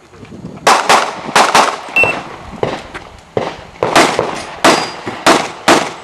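Handgun shots fired in quick pairs and short strings, about a dozen in all. Twice a brief high ring follows a shot, typical of a steel target being hit.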